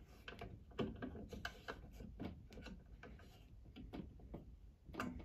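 Faint, irregular clicks and ticks of an Allen key turning the locking screw of a Cerberus Pyrotronics MS-10B fire alarm pull station as it is tightened shut.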